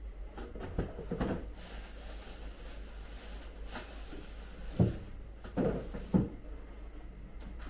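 Fridge-freezer door being opened and things handled inside: a few dull knocks and thuds, the loudest about five seconds in.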